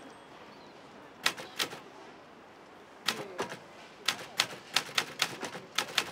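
Manual portable typewriter being typed on. Two key strikes come about a second in, then after a short pause a faster, uneven run of sharp key clacks, three or four a second.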